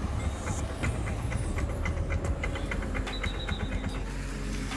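A vehicle driving on the road: a steady low engine and road rumble, with a quick run of light clicks or rattles over the first half.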